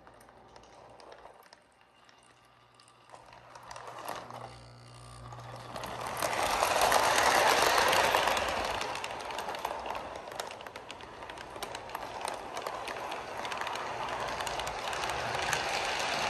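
Lionel 8617 Nickel Plate O-gauge toy steam locomotive, freshly lubricated, pulling away and running past on FasterTrack: a motor hum under wheels rolling and clicking over the rails. It is loudest about six to eight seconds in, as it passes closest.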